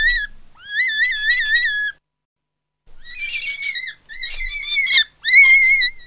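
A high warbling, whistle-like tone in phrases about a second long, its pitch wobbling up and down about six times a second, like a theremin. It breaks off for about a second near the middle, and the phrases that follow are rougher.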